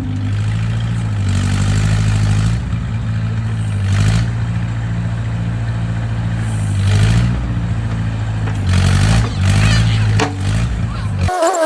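A 1950s Massey Ferguson tractor's engine running, its pitch rising and falling a few times as it is revved, with several short bursts of clatter. Music cuts in abruptly near the end.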